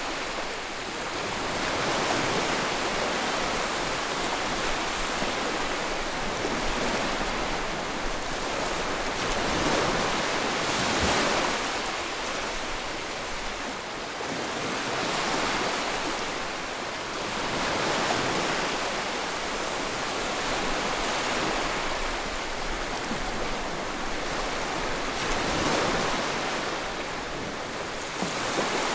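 Sea waves breaking and washing on the shore, a continuous rushing surf that swells and eases in surges every few seconds.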